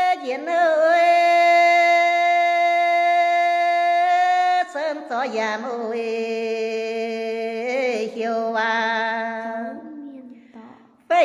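A woman singing a Red Dao lượn folk song without accompaniment, holding long notes with a wavering vibrato. The melody drops to a lower note about four and a half seconds in and fades away near the end.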